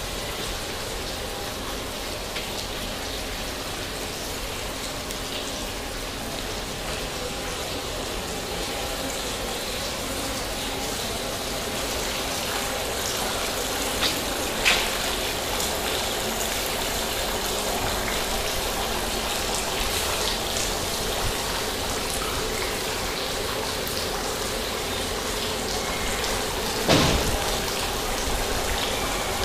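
Small fountain's water jets splashing steadily into a shallow stone basin, a little louder around the middle. A couple of short knocks, one about halfway and one near the end.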